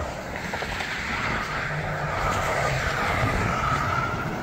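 A car or truck passing at highway speed: its tyre noise on the asphalt swells to a peak about three seconds in, drops slightly in pitch as it goes by, then eases.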